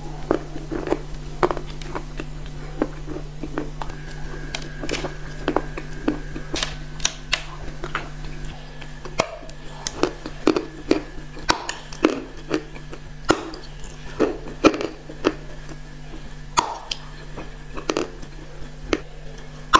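Close-miked eating of clay: irregular bites, crunches and wet, sticky mouth smacks as a dry grey chunk and then soft, wet clay paste are chewed. A steady low hum runs underneath.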